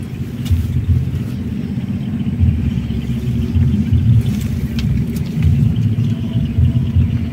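Wind buffeting the microphone: a loud low rumble that swells and dips in gusts.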